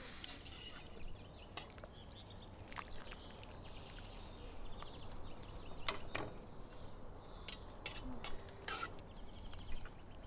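Sparse clinks and knocks of a metal skimmer against a ceramic platter and a large pot as pieces of boiled meat are lifted out and set down, the sharpest about six seconds in and near the end. Small birds chirp faintly over a low outdoor background.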